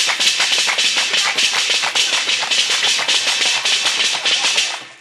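Fast, dense hand-percussion rhythm of many quick strokes, with a plastic bucket beaten as a drum and hands clapping, dropping away just before the end.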